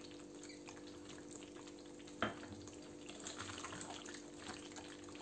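Faint bubbling and crackling of a thick creamy chicken curry sauce cooking in a pan as a spatula stirs it. A steady low hum runs underneath, and there is a single sharp knock a little after two seconds in.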